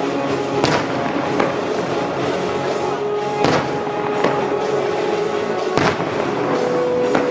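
Firework shells bursting in the sky, about six sharp reports spread through, over music played over loudspeakers for a show synchronised to music.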